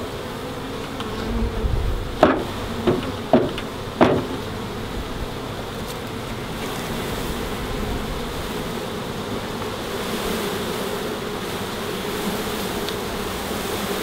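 Swarm of honeybees buzzing in a steady hum as they are shaken out of a wooden package box into an open hive, with four sharp knocks of the box about two to four seconds in as it is jolted to dislodge them.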